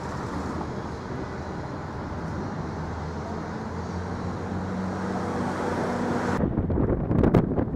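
City street traffic with a motor vehicle's engine running steadily. About six seconds in, it gives way abruptly to wind buffeting the microphone in uneven gusts.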